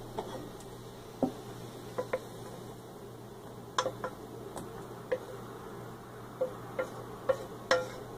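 Wooden spatula knocking and scraping against a stainless steel skillet as cooked vegetables are pushed out into a bowl: a dozen or so light, irregular knocks over a low steady hum.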